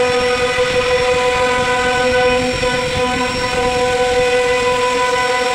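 CNC router spindle running at speed with a steady high whine and overtones, its bit carving a pattern into a wooden plank with a rough cutting noise beneath the whine.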